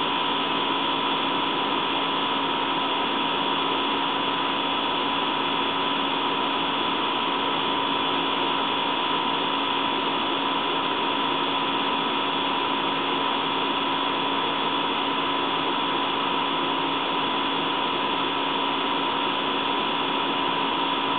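Steady, even hiss with a few faint, constant hum tones in it, unchanging throughout, with no thunder heard.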